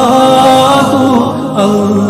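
A solo voice chanting in long, held notes with ornamented turns, in the manner of Islamic devotional recitation. A new phrase begins about one and a half seconds in.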